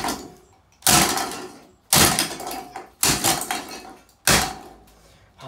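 A Lanson ceiling fan being smashed: five sharp blows about a second apart, each ringing briefly as it fades.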